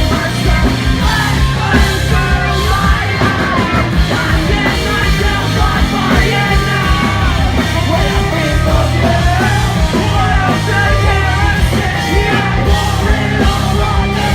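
Live punk rock band playing loud, with drums, distorted guitars and bass under sung and yelled vocals.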